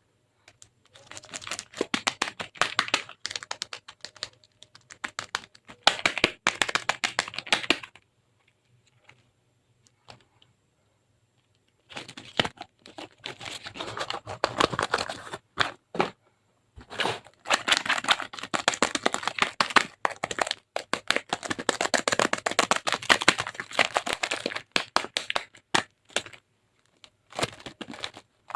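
Soap cracking: dense, rapid crackling and snapping in long stretches, with a silent pause of several seconds about a third of the way in and shorter breaks later.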